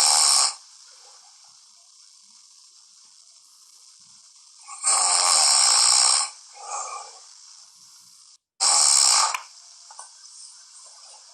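A man snoring in his sleep: a loud snore ends just after the start, and two more loud snores come about five and nine seconds in, each a second or so long, with a weaker snort just after the second.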